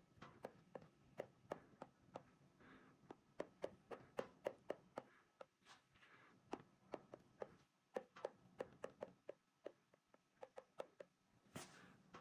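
A stylus tip tapping on a tablet's glass screen: faint, quick light taps at an uneven pace of a few a second, each tap filling a region of the picture with colour.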